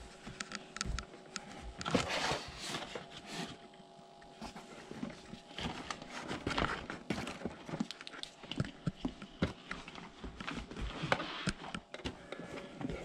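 Irregular clicks, taps and rustling of hands handling objects at close range, with a few louder knocks.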